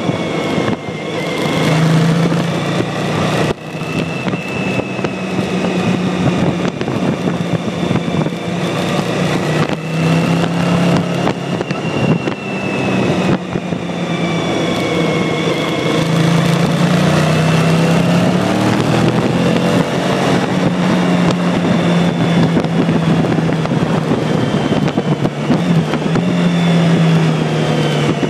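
Yamaha RZ350 two-stroke parallel-twin motorcycle engine running at road speed, its pitch rising and falling again and again with the throttle through the bends.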